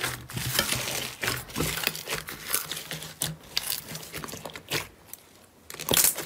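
Thick purple slime with foam beads being squeezed, kneaded and stretched by hand, giving a dense run of irregular crackles and squishy pops. It goes quieter for a moment, then a few loud pops come near the end.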